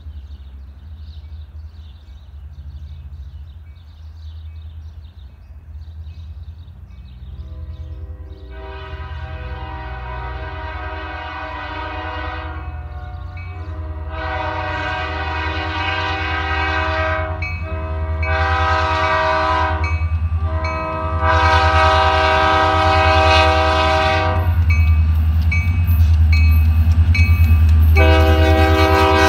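Diesel freight locomotive horn blowing the grade-crossing signal as the train approaches: two long blasts, a short one and a long one, with another blast starting near the end. Underneath, the low rumble of the locomotive's diesel engine grows steadily louder as it nears.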